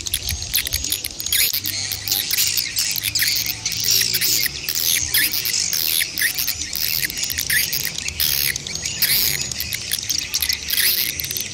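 A flock of swiftlets twittering and chirping without pause, many overlapping high calls and clicks. The mix holds adult and chick calls, the kind used to lure swiftlets into a nesting house.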